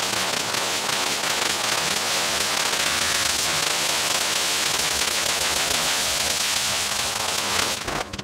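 Pressure-washer wand spraying a steady jet of water onto a wet shag rug, a constant hissing spray. It cuts off near the end and quick, evenly spaced scrubbing strokes begin.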